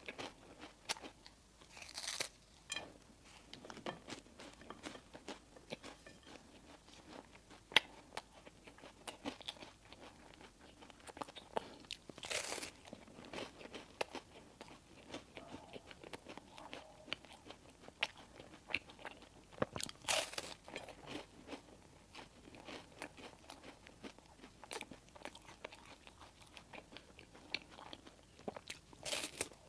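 Close-miked eating sounds: biting and chewing bread and pastries, with many small mouth clicks and a few louder bites spread through.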